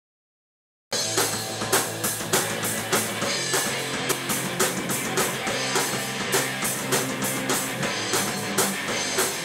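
Rock band playing live: electric guitars over a Tama drum kit keeping a steady beat. The sound is cut to dead silence for about the first second, then the band comes in at full level.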